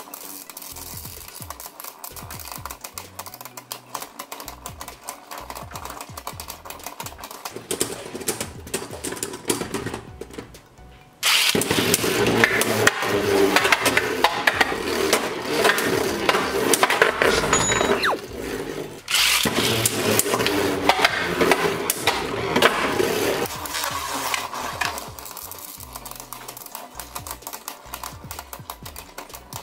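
Two Beyblade Burst spinning tops, World Fafnir and Glide Satan, clattering and scraping against each other and the plastic stadium floor in a dense, rapid rattle. It turns much louder at about a third of the way in and eases off near the end. Music plays in the background.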